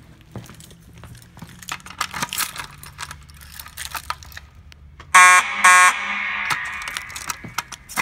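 Fire alarm horn sounding two short, loud blasts about half a second apart, a little over five seconds in, with a long echo after them in a large hard-surfaced room. Footsteps before the blasts.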